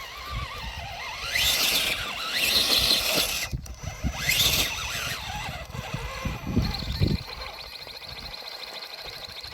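RC rock crawler's electric motor and geared drivetrain whining under throttle, the pitch rising and falling in two bursts as it climbs, then a steadier high whine near the end.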